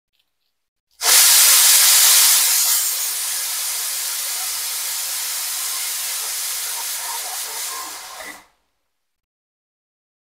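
Pressure cooker whistle venting steam: a loud hiss that starts suddenly about a second in and is strongest at first. It settles to a steady hiss and dies away after about seven seconds. It is the sign that the cooker, holding lentils, has come up to pressure.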